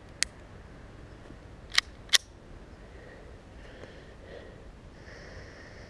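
.22 LR semi-automatic pistol being readied to fire: one sharp metallic click just after the magazine is slammed home, then about a second and a half later two quick clicks close together, typical of the bolt being pulled back and released to chamber a round.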